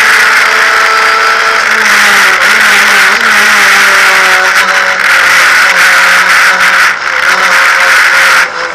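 Renault Clio Cup race car's engine running hard under racing load, heard loud from inside the stripped cabin. Its pitch wavers and shifts through gear changes and corners, and the sound dips briefly twice in the last couple of seconds as the driver lifts.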